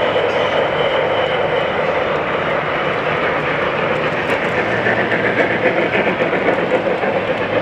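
Model steam locomotives running on a layout, their sound-effect chuffing coming in an even rhythm that is clearest in the middle, over a steady background din.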